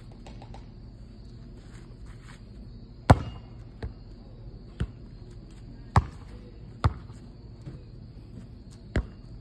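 A basketball bouncing on an asphalt driveway: about six separate, sharp thumps at uneven intervals, the loudest about three seconds in.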